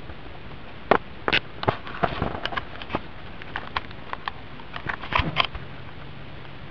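Irregular sharp knocks and clicks of a camcorder being picked up and handled, its built-in microphone bumped and rubbed, loudest about a second in and again near the end.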